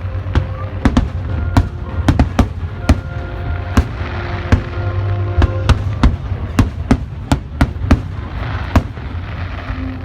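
Aerial fireworks display: a steady low rumble with irregular sharp bangs, about two to three a second. Music with held notes plays underneath.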